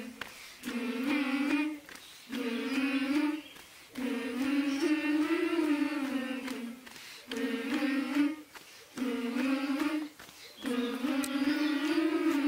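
Group of children singing a slow, chant-like tune in unison, without accompaniment, in about six held phrases of one to three seconds with short breaks between them.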